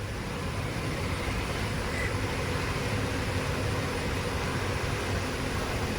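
Steady background noise, a low hum under an even hiss, with no speech and no distinct events.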